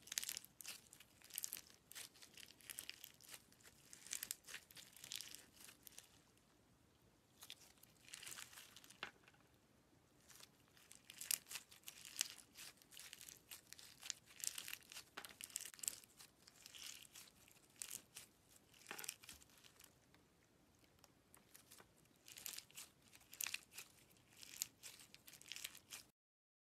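Clear slime full of orange jelly pieces being squeezed and kneaded between the fingers: sticky crackling and popping clicks in uneven bursts. It stops abruptly near the end.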